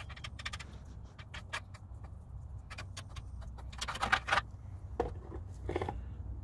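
Paintbrush scratching and dabbing thick paint onto sheet-metal seams: a run of small clicks and scrapes, busiest about four seconds in, over a steady low hum.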